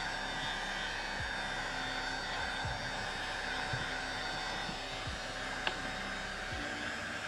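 Hot-air blower running with a steady, even blowing noise as it heats a phone to loosen its screen. One light click about six seconds in.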